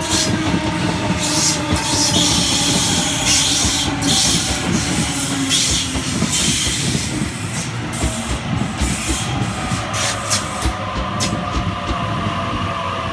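Waratah double-deck electric train pulling into the platform close by and slowing. Its electric whine falls in pitch as it brakes, and a run of wheel clicks over the rail joints comes about two-thirds of the way in.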